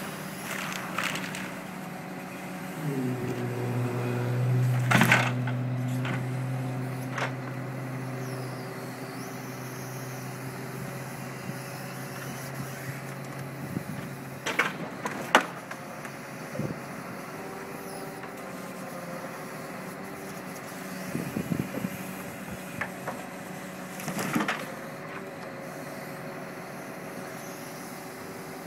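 Truck-mounted Epsilon timber crane working: the lorry's engine and hydraulic pump run steadily, picking up speed under load about three seconds in and dropping back around fourteen seconds. Logs knock and thud as the grab handles and drops them, loudest about five seconds in, with further knocks around fifteen and twenty-four seconds.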